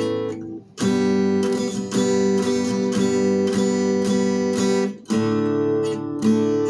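Acoustic guitar strumming chords with no singing, changing chord about a second in and again about five seconds in.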